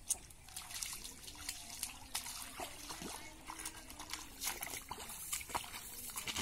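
Bare feet wading through shallow muddy water, with irregular splashes and squelches of wet mud.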